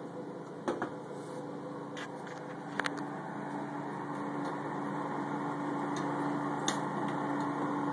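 Steady electric hum of a soda vending machine running, a constant low tone, with a few light clicks and knocks from the machine being handled.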